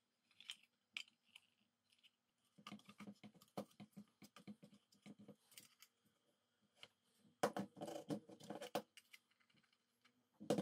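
Faint handling noises of small parts on an electronics enclosure during assembly: quick clicks and scratches, with a louder dense clatter about seven to nine seconds in and a single sharp click near the end.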